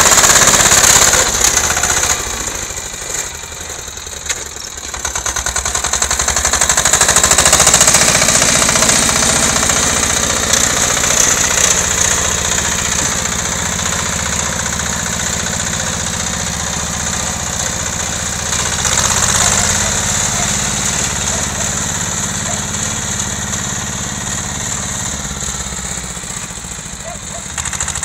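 Small tractor's engine running as it pushes snow with a front plow blade. The engine dips in level about three seconds in, then comes back up and runs steadily.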